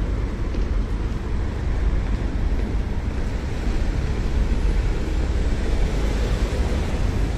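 Steady outdoor street ambience: a constant hiss of road traffic under a low, buffeting rumble of wind on the microphone.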